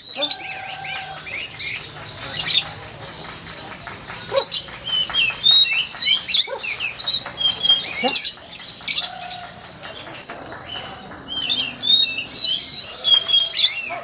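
Songbirds chirping and whistling in the tree, short high calls coming in quick clusters.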